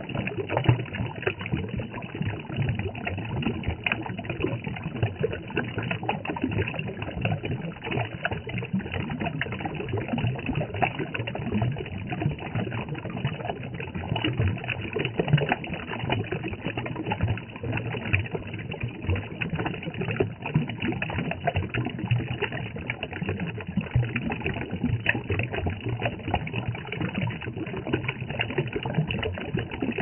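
A small stream of water spilling over rocks into a shallow pool, splashing steadily close to the microphone.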